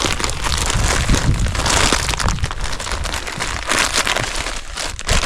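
Crinkly packaging being torn open and rustled by hand, a dense run of crackling and crumpling as an item is unwrapped.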